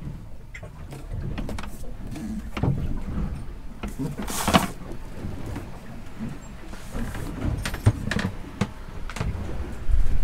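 Scattered knocks and rustles over a low rumble as someone moves through a sailboat's cabin with a handheld camera, with one louder rustle about four and a half seconds in.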